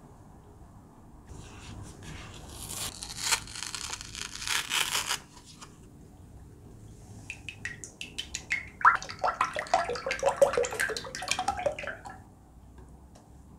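Cream poured from a paper carton into a stainless steel bowl, splashing and glugging in a dense run of bursts through the second half. Before that, the paper carton rustles in the hands for a few seconds.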